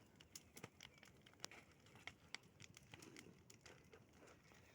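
Faint campfire crackling: irregular sharp pops and snaps, a few a second.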